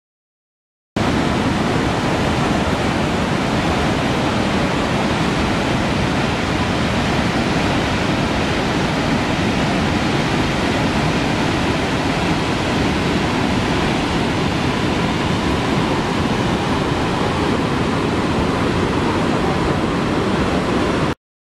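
The Lower Falls of the Yellowstone River, heard up close from the brink where the river pours over the edge: a loud, steady rush of falling water that starts abruptly about a second in and cuts off abruptly near the end.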